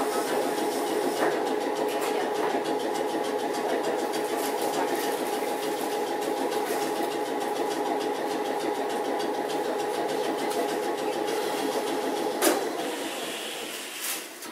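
Randen Mobo 21-type retro tram running, heard from inside the car: a steady two-note motor hum over wheel and rail noise. About twelve seconds in there is a sharp click, the hum stops, and the running noise fades as the tram coasts.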